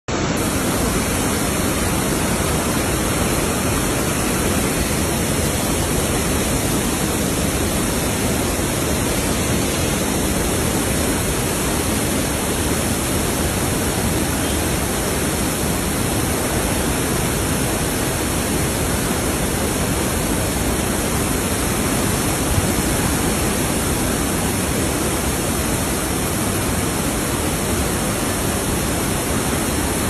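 Steady rush of water pouring through the open spillway gates of a dam and churning in the channel below, an even, unbroken noise.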